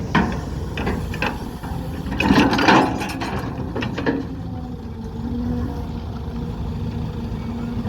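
Kobelco SK200 Super excavator working: the engine runs steadily under a series of metal clanks and knocks from its worn, loose bucket. A heavier cluster of clanks comes about two to three seconds in.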